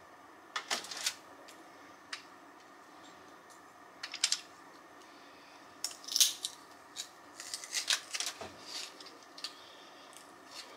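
Garlic cloves being loaded into and squeezed through a handheld garlic press over a small glass bowl: scattered small clicks and taps, busiest in the second half.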